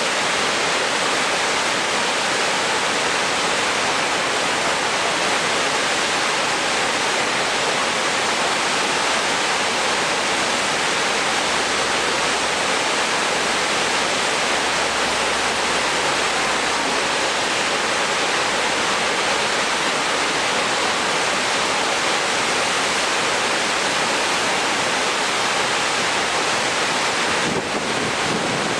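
Steady, unbroken rush of water, an even noise that never lets up.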